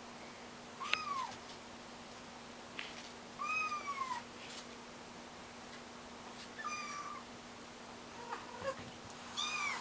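Kitten mewing: four high, thin calls, each about half a second long and rising then falling in pitch, a few seconds apart.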